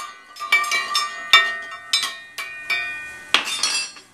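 Small stainless-steel toy pots, pan and tongs clinking and clanking together as a toddler stirs and knocks them: a string of sharp metal clinks, each ringing briefly, with a quick flurry of clatter near the end.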